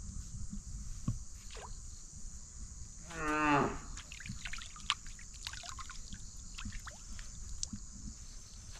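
A cow moos once, a short call falling in pitch about three seconds in, over a steady high drone of insects and scattered short chirps.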